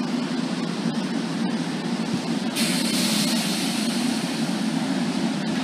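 NJ Transit commuter rail coaches rolling past, with a steady low rumble of steel wheels on the rails. About two and a half seconds in, a loud hiss comes in suddenly and holds.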